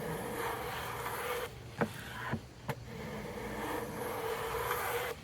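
Hand plane taking two long strokes along a board edge, a steady hiss of the blade cutting a shaving, with a few light knocks between the strokes. The edge is being planed to a clean cut surface for gluing.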